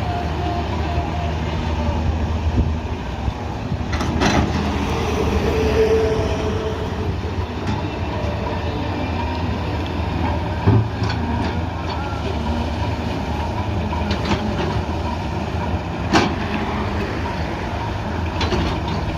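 Diesel engine of an excavator or backhoe running steadily, with a few sharp knocks over it, about four in all.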